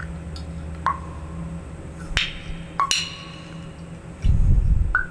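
Box cutter blade snapping through the thin leftover skin on the edges of a thin machined metal plate: several sharp clicks, most leaving the plate ringing briefly. A louder low rumble from handling the plate follows near the end.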